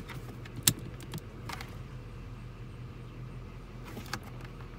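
A few sharp clicks from handling the controls of a Clarion CMD8 marine CD receiver. The loudest click comes about two-thirds of a second in, and a pair more come near the end. A steady low hum runs underneath.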